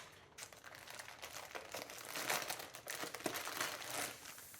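Packaging crinkling and rustling in irregular spurts, with a few light ticks, as a low-profile CPU cooler and its fan are handled and unpacked from the box.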